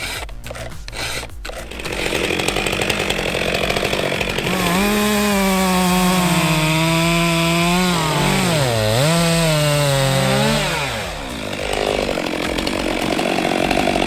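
Chainsaw engine running at high revs, its pitch sagging briefly as it takes load and then recovering, before the revs drop away near the end and a rougher cutting noise carries on.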